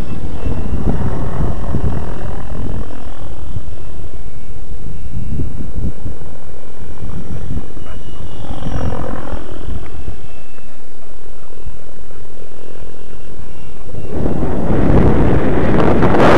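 Electric 700-size RC helicopter on a 6S setup flying at low headspeed: motor and rotor whine whose pitch dips and rises twice as it manoeuvres overhead, over a steady low rumble. Wind rushes on the microphone from near the end.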